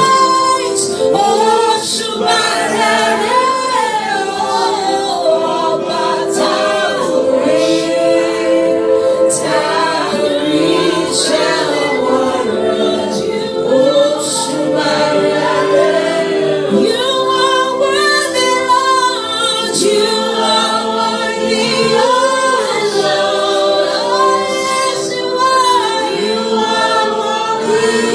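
A choir singing a worship song in harmony, several voices holding sustained chords with melodic lines moving above them, apparently unaccompanied.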